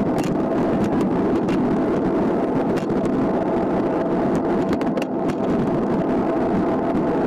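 Wind rushing over the microphone and tyres rolling on asphalt while riding a road bike at speed. A faint steady hum runs through it, with scattered small clicks from the bike on the road surface.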